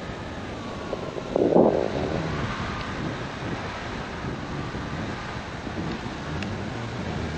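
Airflow rushing over the microphone of a paraglider pilot in flight, steady throughout, with one louder brief gust about a second and a half in.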